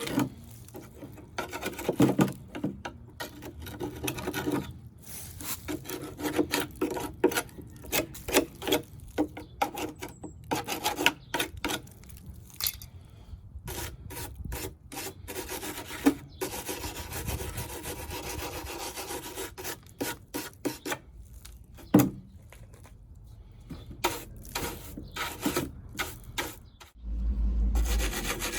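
Irregular rough rasping strokes of hand-filing on the RZR's cracked plastic air intake. A steady low hum starts near the end.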